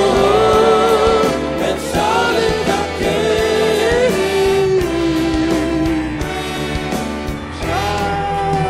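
Live Jewish pop band music: long, slightly wavering sung notes over a male backing choir, keyboards, drums and violins.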